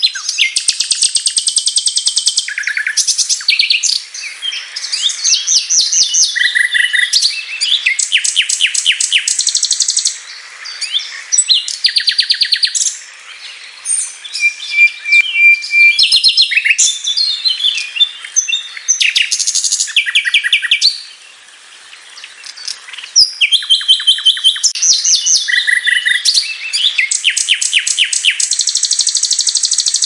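Nightingale singing a long, varied song: phrases of rapid repeated notes and fast rattling trills, with a long pure whistle about halfway through and short pauses between phrases.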